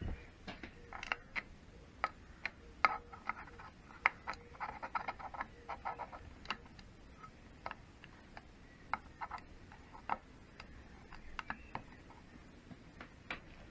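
A small hand ratchet clicks in irregular runs of sharp ticks, with light metal-on-metal taps, as nuts are undone from the studs on a Triumph gearbox case. A quick flurry of clicks comes about four to six seconds in.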